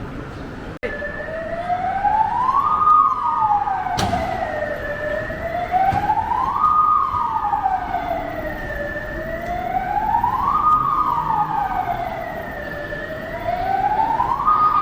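A wailing siren, its pitch rising and falling slowly in one full cycle about every four seconds, coming in just under a second in.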